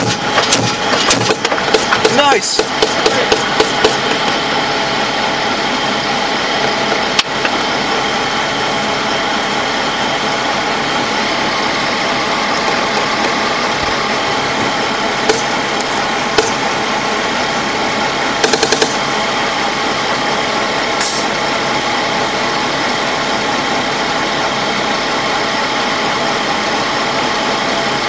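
LAV III armoured vehicle's diesel engine running at a steady drone, heard from inside the hull. Sharp cracks cut through it: a scatter of them in the first few seconds, single ones now and then, and a short quick burst of several about two-thirds of the way through.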